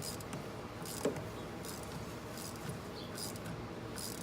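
Socket wrench on an extension being ratcheted to tighten a battery bus bar stud: short bursts of ratchet clicking, about one a second, with a single knock about a second in.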